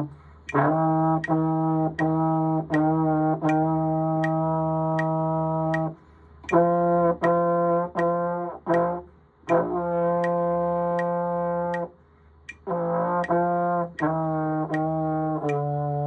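Slide trombone playing sustained notes in short phrases, with brief breath gaps between them. A metronome ticks steadily underneath at about 80 beats per minute.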